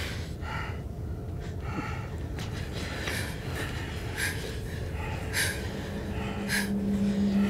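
A person's heavy, laboured breathing, with gasping breaths about once a second. A low, steady hum comes in near the end and swells.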